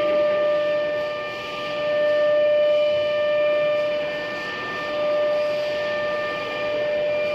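Italian 9 kW spindle of an aluminium-profile CNC drilling and milling machine running with a steady high whine. The machining noise under it swells and eases every few seconds.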